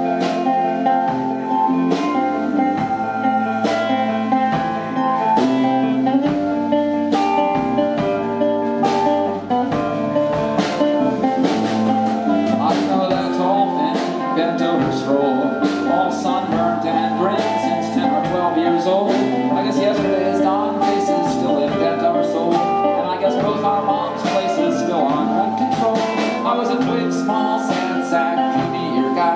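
Live rock band playing an instrumental break: guitars and bass guitar over drums keeping a steady beat.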